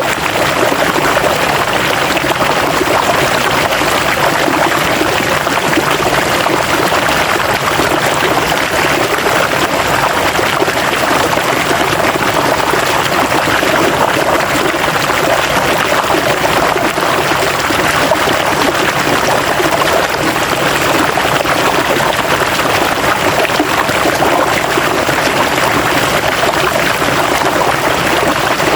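River water running steadily over rocks, a constant rushing and gurgling with no pauses.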